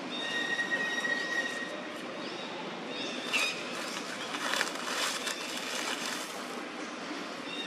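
Dry leaf litter rustling and crackling as macaques scrabble through it, loudest about four to six seconds in, over steady outdoor background noise. A high, thin call is held for about two seconds near the start, and a shorter chirping call comes about three seconds in.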